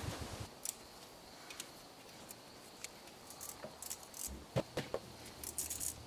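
Scattered light clicks and clinks of hand work under a motorcycle engine during an oil drain, with a quick cluster of them near the end.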